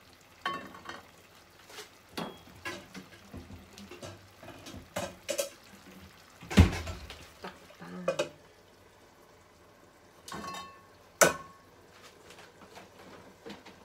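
Metal pots and pans knocking and clinking on a gas stove as a small saucepan is set down and a lid is put on a frying pan: a string of separate knocks, the two sharpest about halfway through and again near the end.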